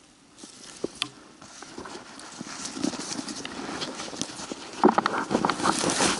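Footsteps pushing through dense low shrubs and grass, with brush swishing and twigs snapping. It is quiet at first, grows busier from about halfway, and is loudest near the end.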